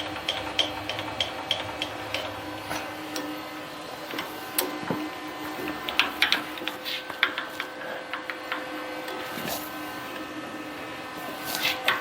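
Hand-cranking and handling of metal machine parts: a run of even light ticks, about three a second, for the first couple of seconds, then irregular clicks and knocks, over a steady hum.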